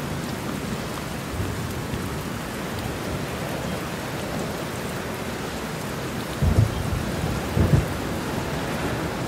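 Steady rain with low thunder rumbles, two of them louder in the second half.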